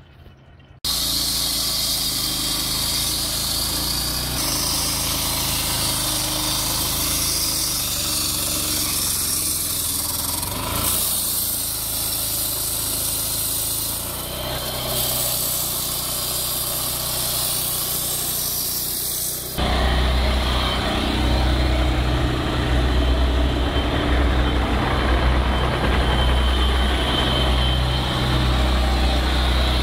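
Petrol walk-behind asphalt saw with a Honda engine and water-cooled blade, running and cutting into asphalt pavement with a steady engine drone and a hissing cut. About two-thirds of the way through the sound changes abruptly to a louder, deeper engine note.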